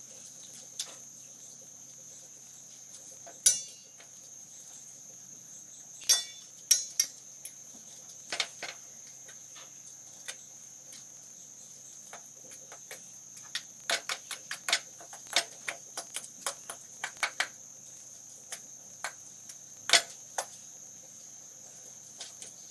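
Steady high-pitched cricket chirring throughout, with irregular sharp clicks and taps scattered across it, several of them loud.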